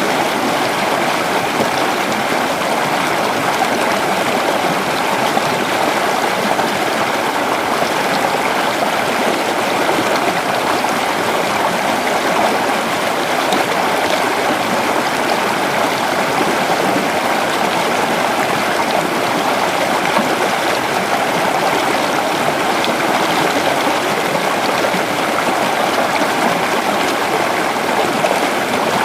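A creek's water running steadily over rocks, an even rushing babble with no breaks.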